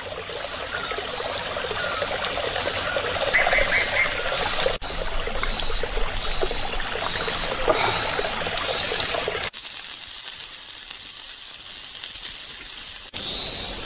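Meat slices sizzling on a stone heated over charcoal embers, a steady hiss, with a few short high bird chirps in the first half.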